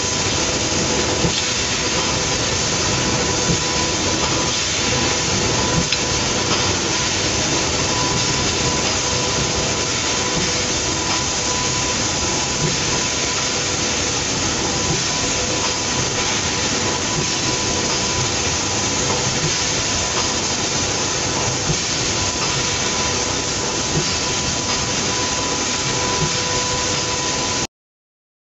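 Plastic cup thermoforming machine line running: a steady, loud hiss with a constant whine and a few faint clicks, cutting off suddenly near the end.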